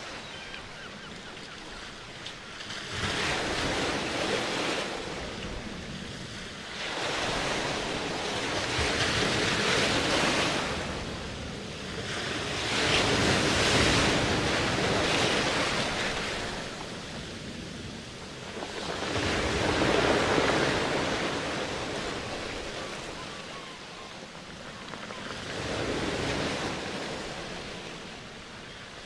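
Ocean waves breaking and washing back: a rushing noise that swells and fades in slow surges about every five or six seconds.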